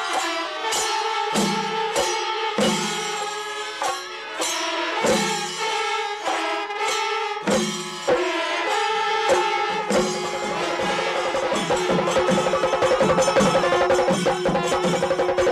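Kerala temple percussion ensemble: chenda drums struck with sticks, with brass horns holding long notes over the beat. For the first ten seconds or so, heavy strokes fall about once a second. The drumming then breaks into a fast, dense roll.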